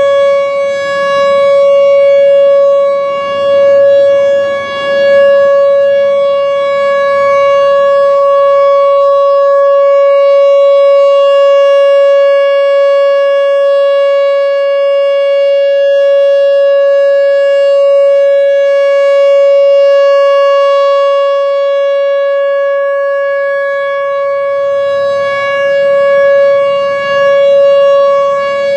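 Whelen Vortex R4 outdoor warning siren sounding its steady alert signal: one held pitch with no rise or fall, its loudness swelling and dipping slightly as the rotating head turns.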